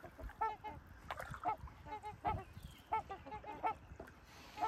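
Geese honking, a rapid, irregular series of short honks, two or three a second, several birds calling over one another.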